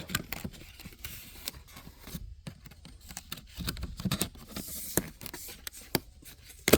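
Cardboard firework packaging being handled and closed: irregular scraping and rustling with scattered clicks and knocks, a sharp knock near the end.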